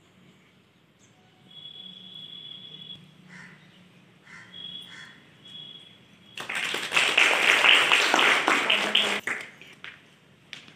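A small group of people clapping by hand for about three seconds, starting about six seconds in. Before it, a bird chirps faintly a few times in short high calls.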